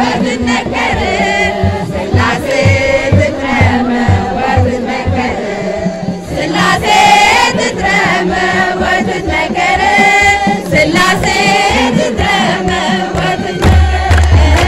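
Ethiopian Orthodox hymn sung by a group of voices together, kept in time by kebero drum beats and hand clapping. The deep drum beats grow louder near the end.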